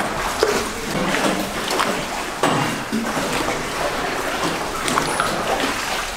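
Water splashing and sloshing around small wooden rowing boats as oars dip and pull, with irregular small splashes and drips, inside a low cave tunnel.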